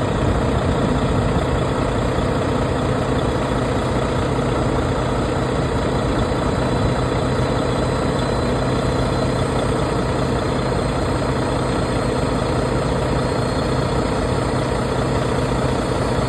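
Volvo truck's diesel engine idling steadily.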